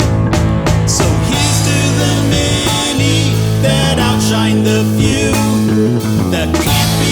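Instrumental passage of a rock song, with guitar over a steady low part.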